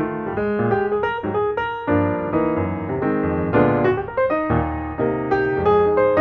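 Background music: solo piano playing a flowing melody over chords, note after note struck and decaying.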